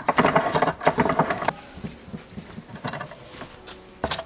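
Rapid metallic clicking and rattling of tools or a mechanism being handled at a workbench for about a second and a half, then light handling noises and a single sharp knock near the end as the steel fork leg is set down in the bench vise.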